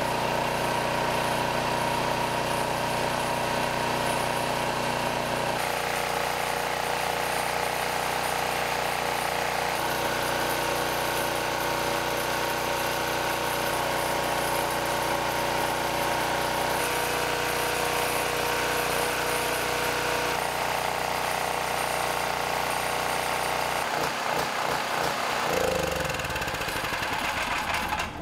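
Predator 4000 portable generator's single-cylinder engine running steadily under load on propane fed from gas-grill parts, a smooth, even running note. The sound turns uneven in the last few seconds.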